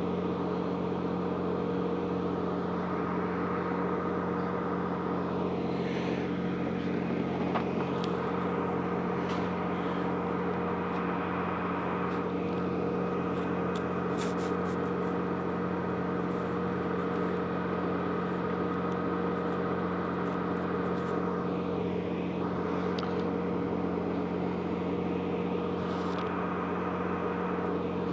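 TriMet WES Stadler GTW diesel railcar standing at a platform, its diesel engine idling with a steady, even hum, with a few faint clicks.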